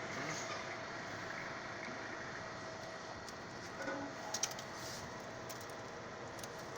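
Steady machinery hum, an even noise with a faint constant tone, with a few light clicks about four seconds in.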